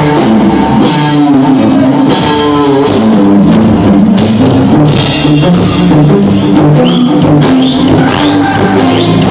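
Live rock band playing loud: electric guitar over a drum kit with cymbals.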